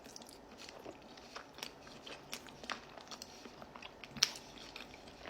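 Faint chewing of a bite of egg with cottage cheese and honey: scattered small wet mouth clicks, with one sharper click about four seconds in.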